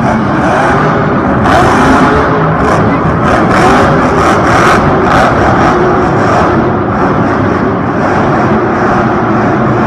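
Grave Digger monster truck's supercharged engine revving hard and loud during a freestyle run, with a cluster of sharper bursts between about one and a half and five seconds in.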